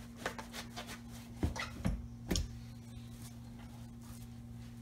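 A towel being worked into a wet mesh running shoe and the shoe pressed down on a countertop to soak up water: a handful of short rubbing squeaks and soft knocks in the first couple of seconds, over a steady low hum.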